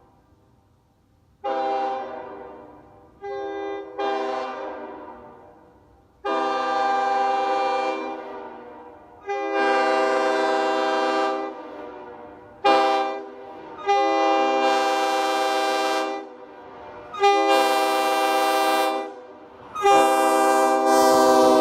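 Five-chime Nathan Airchime train horn (K5-series) sounded on compressed air in a run of about nine blasts. Some blasts are quick honks and others are held for about two seconds. Each chord trails off after it, and the last blast, starting near the end, is still sounding.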